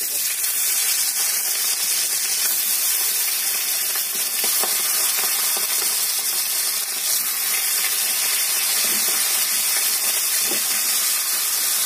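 Pabda fish rubbed with turmeric and salt sizzling in hot oil in a wok: a loud, steady sizzle that starts as the first fish goes in and keeps going as more are laid in.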